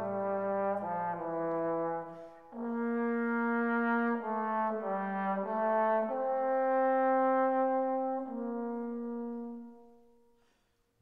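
Background music: a brass instrument plays a slow melody of long held notes, breaking off briefly about two seconds in and fading out near the end.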